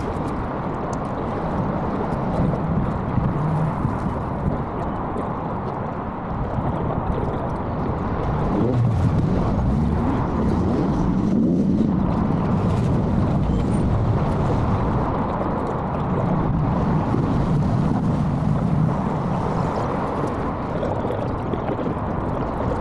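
Wind buffeting the microphone: a steady low rumbling noise that grows a little louder about eight seconds in.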